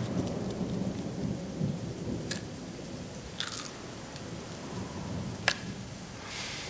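Thunder rumbling low under rain, with a few short sharp clicks; the loudest click comes about five and a half seconds in.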